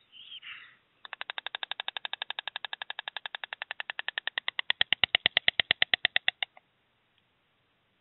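White stork clattering its bill: a long, fast, even run of wooden-sounding clicks, about ten a second, that grows louder near the end and then stops. It is the stork's call to its mate at the nest.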